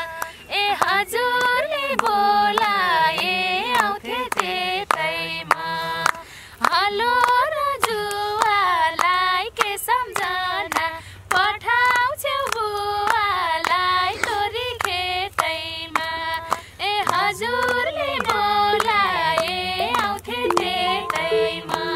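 Women singing a Nepali dohori folk song together, with hand clapping keeping the beat.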